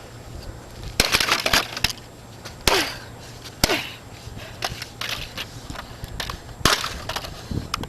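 A hammer smashing a vacuum cleaner: about four hard blows, spread over several seconds, each followed by cracking and rattling as pieces break and scatter.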